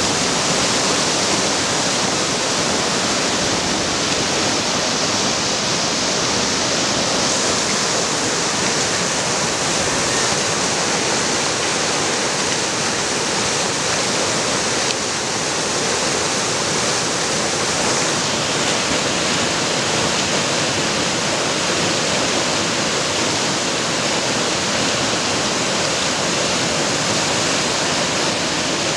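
Whitewater rapids rushing over rocks: a steady, loud wash of water noise that stays even throughout.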